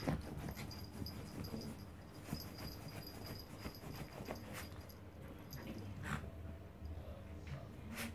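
Two small dogs tussling on a bed: faint rustling, snuffling and snorting, with a few short soft sounds about six and eight seconds in.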